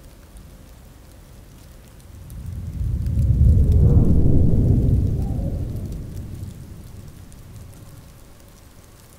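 Steady rain with a long roll of thunder: a deep rumble swells up about two seconds in, holds for a couple of seconds and slowly dies away.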